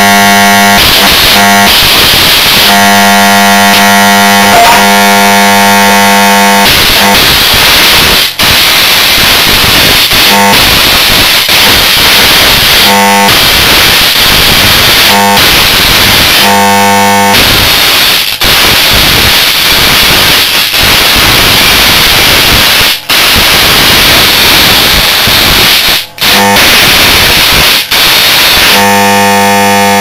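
High-voltage arcing from stacked microwave oven transformers into a waterlogged photocopier. A loud, harsh crackling hiss alternates with stretches of steady mains buzz, and the arc breaks off briefly a few times.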